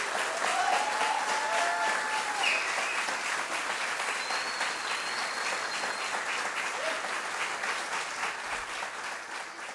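Audience applauding steadily, with a few shouts over the clapping in the first couple of seconds. The applause begins to fade near the end.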